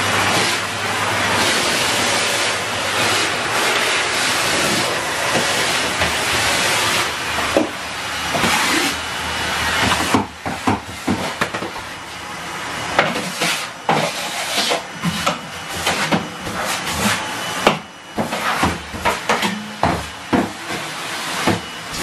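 Henry cylinder vacuum cleaner running, a steady loud whoosh of suction. About ten seconds in it turns choppy, broken by many short knocks and rattles as the nozzle is worked along the floor.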